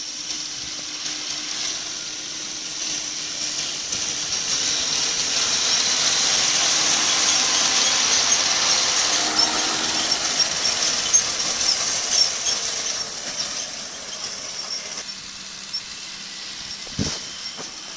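John Deere tractor pulling a disc mower through a hay crop: engine running under a high whine from the spinning mower discs. The whine swells as the machine passes close, about halfway through, then fades as it moves away. A single short knock comes near the end.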